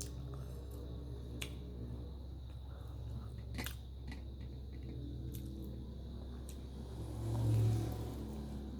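A person biting and chewing homemade fried chicken phaley close to the microphone, with a few sharp clicks spread through and a louder low sound near the end.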